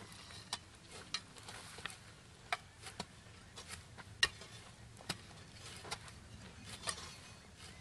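Long-handled trail-building hand tools scraping and chopping into dry dirt and brush, giving irregular scrapes and sharp clicks of metal blades on soil and small stones. The loudest strike comes about four seconds in.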